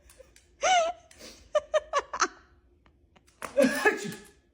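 A person laughing in short bursts. There is a pitched vocal outburst about half a second in, a quick run of separate laughs around two seconds in, and a louder outburst near the end.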